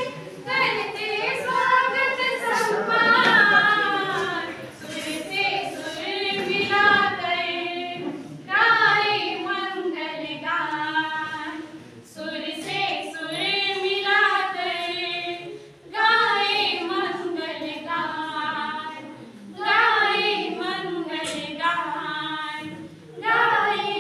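Group of four young women singing a welcome song together without accompaniment, in phrases broken by short pauses every few seconds.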